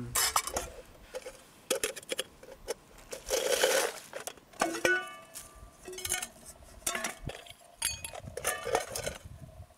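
Metal camping pots, a lid and a small kettle knocking and clanking as they are unpacked and set down, several knocks leaving a short ringing tone. A louder rustling burst comes about three and a half seconds in.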